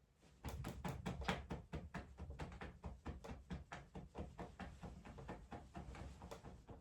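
Rapid, even knocking or tapping, about five strikes a second, starting about half a second in and keeping on steadily.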